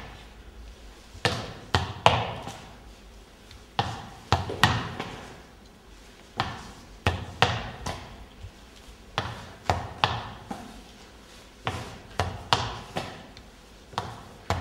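A ball thrown against a plaster wall and bouncing back, knocking again and again in quick clusters of two or three hits every second or two.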